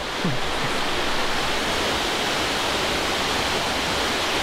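Waterfall pouring down a rock face, a steady, even rush of falling water.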